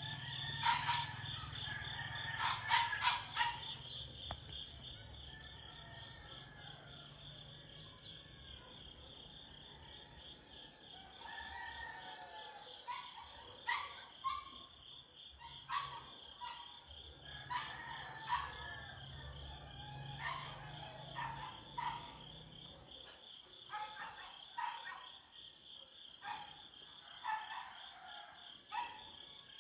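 Tropical dawn ambience: a steady high insect trilling throughout, with roosters crowing in the distance and a run of short repeated animal calls. A low hum underneath stops about two-thirds of the way through.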